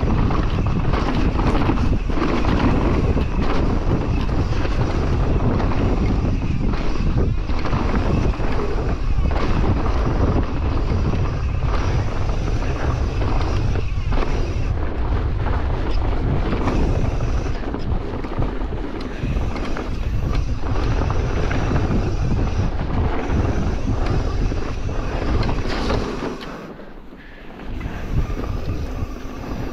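Wind buffeting the microphone over the tyre noise and rattle of a mountain bike descending a dirt trail at speed. The noise dies down briefly near the end, then picks up again.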